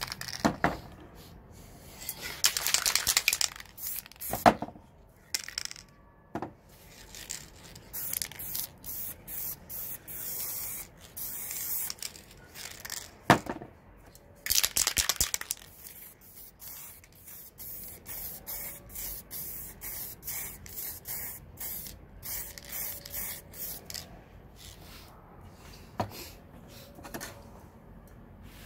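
Aerosol spray paint cans hissing in many short bursts and two longer sprays, with a few sharp knocks between them.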